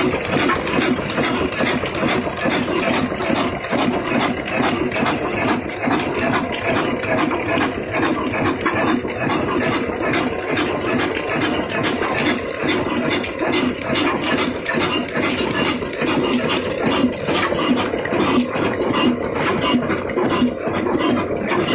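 Old 18 HP stationary diesel engine running steadily. Its sharp, even firing beat comes about two to three times a second over the clatter of the valve gear.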